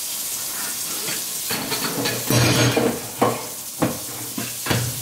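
Food sizzling in a frying pan, a steady hiss, with a clatter of utensils and dishes about halfway through and several sharp knocks after it.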